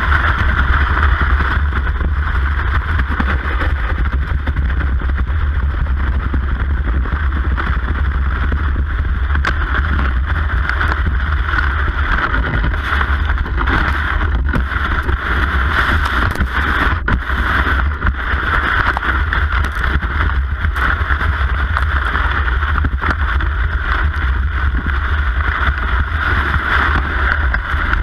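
Steady rushing noise of a cross-country ski gliding fast over a groomed snow track, heard through a camera mounted on the ski, with wind buffeting the microphone.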